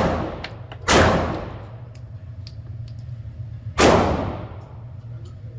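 Two handgun shots about three seconds apart, each with a long echoing tail, plus the fading echo of a shot just before. Fainter clicks and pops sound between them.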